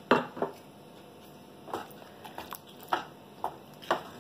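Thick chickpea curry (chole masala) bubbling in a pan, with bubbles bursting in irregular plops about seven times, the loudest right at the start.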